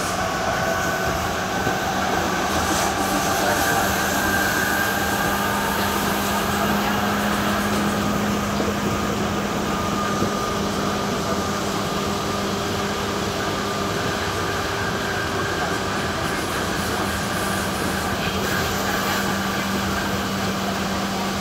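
DT3-E metro train running at speed, heard from the driver's cab: steady wheel-on-rail running noise with a constant low hum and faint whines that drift slightly in pitch.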